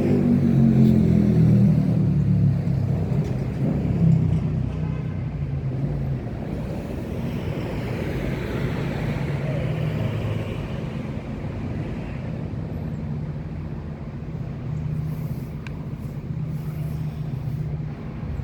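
Car engine running with road noise, its pitch falling over the first few seconds as it slows, then holding steady.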